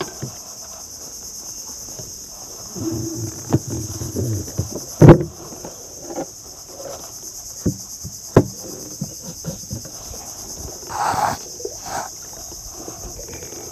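Steady high-pitched drone of an insect chorus from the riverbank, with scattered sharp knocks against the wooden boat as gear and fish are handled; the loudest knock comes about five seconds in.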